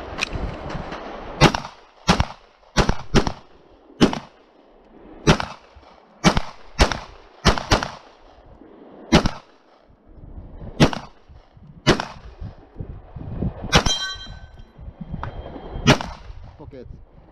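Glock 34 9 mm pistol fired about fifteen times in quick strings, the shots half a second to a second and a half apart. Late on, a steel target rings after a hit.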